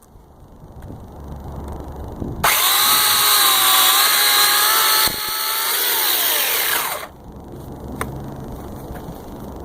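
Sun Joe electric chainsaw switched on and running at full speed for about four and a half seconds with a high motor whine and chain noise, then winding down in pitch as the trigger is released.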